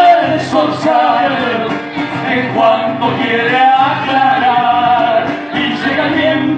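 Live zamba: acoustic guitar accompanying singing voices, a man's voice among them.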